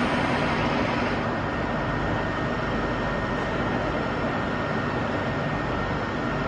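Steady hum and rush of factory production machinery running, with a few faint steady tones; the higher hiss eases slightly about a second in.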